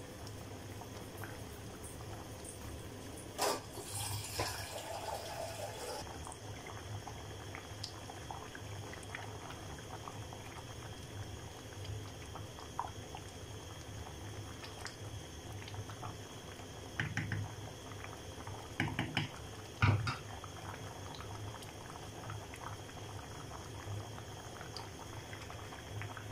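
A pot of dal simmering and bubbling on a gas burner. About three and a half seconds in there is a brief splash and rustle, and later a few short knocks of a wooden spatula against the pot as it is stirred.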